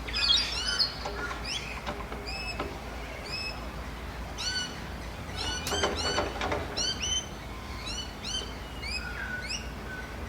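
Several birds chirping and calling at once, many short upward-sweeping calls overlapping, over a faint steady low rumble.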